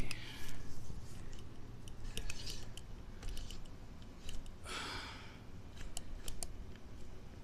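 Handling noise: scattered light clicks and taps with a short rustling rush about five seconds in, over a low steady hum.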